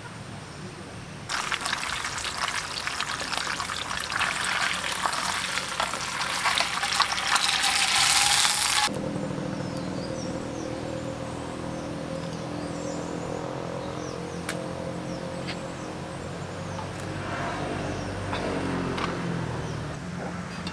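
Food sizzling and crackling in a pan, a loud hiss that cuts off abruptly near the middle. After that a quieter low steady sound remains, with a few faint ticks.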